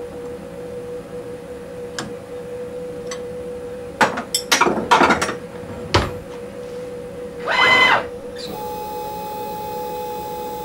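Metal clinks and knocks of tools working on the CNC router, as the large surfacing bit is set in place, then a short squeal and a steady whine from the machine for a few seconds, over a constant hum.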